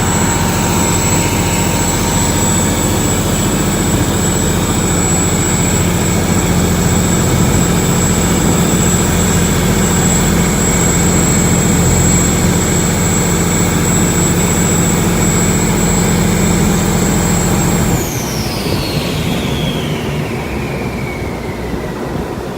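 Bangkok canal boat's engine running hard, a deep engine note with a steady high whine. About eighteen seconds in the engine note drops and the whine slides down in pitch over the last few seconds.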